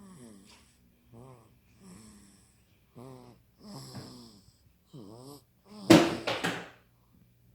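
Two-month-old baby snoring in sleep: short, wheezy, pitched snores, about one a second with each breath. A much louder rasping burst comes about six seconds in.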